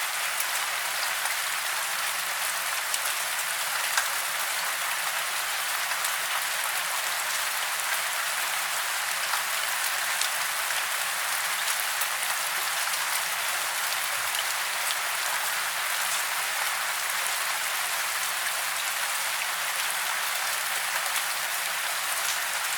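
Steady rain falling: an even hiss of many drops, with scattered small drop ticks.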